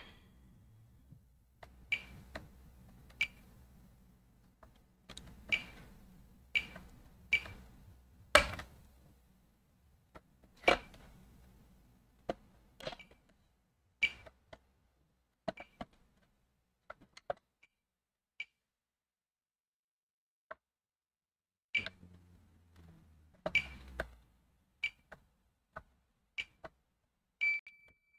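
Scattered light clicks and taps of multimeter probe tips touching test points on a laptop motherboard, many with a short high chirp, while a short to ground is being traced. Near the end a steadier high beep sounds.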